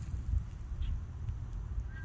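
Outdoor ambience: a low, uneven wind rumble on the microphone, with a faint short bird chirp near the end.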